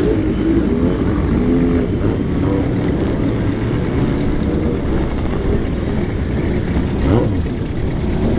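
Old Japanese motorcycle engines running, their revs rising and falling in short swells; one rev climbs and drops sharply about seven seconds in.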